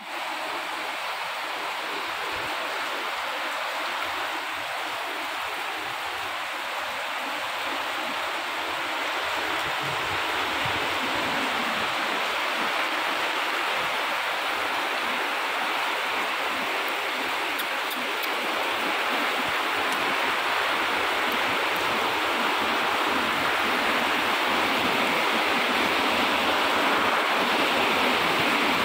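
Heavy rain falling, a steady rushing hiss that grows slowly louder.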